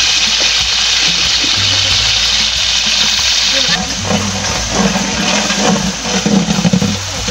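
Sliced onions sizzling in hot oil in a large metal pot, a steady hiss. About four seconds in the hiss eases and a long metal spatula starts stirring and scraping through the frying onions.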